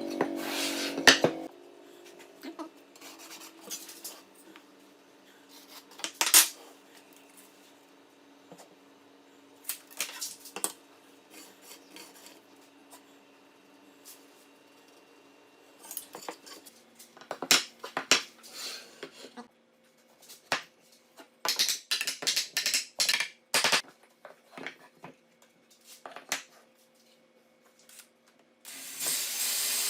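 Metal parts and tools clinking and clattering as they are handled, in scattered knocks with a quick run of clicks about two-thirds of the way through. An electric drill runs briefly at the start and starts up again near the end.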